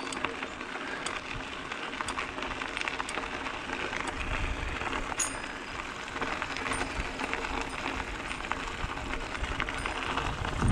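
Mountain bike tyres crunching over a gravel dirt road, with small clicks and rattles from the bike as it rolls. A deeper rumble joins about four seconds in.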